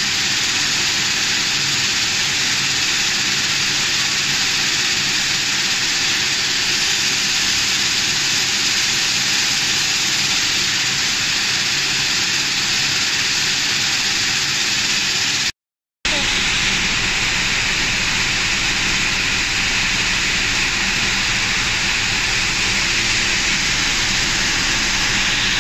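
Steady machine noise of air and fans from a Roastinstep electric continuous coffee roaster, with a low hum underneath. It cuts out for a moment about sixteen seconds in, then returns with a deeper rumble added.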